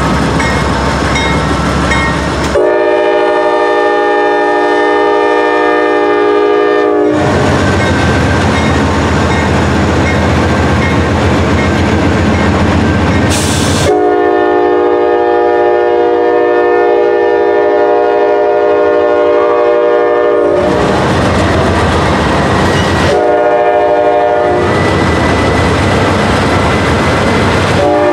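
Norfolk Southern freight train's diesel locomotives running as the train pulls past. The lead locomotive's multi-chime air horn sounds three blasts, two long and one short, the opening of the grade-crossing signal.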